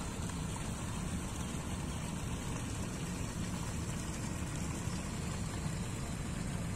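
Water running steadily from a spigot into a pond: a constant low rushing noise.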